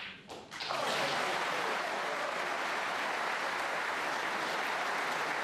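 Snooker audience applauding: a few sharp clicks at the very start, then clapping swells about a second in and holds steady.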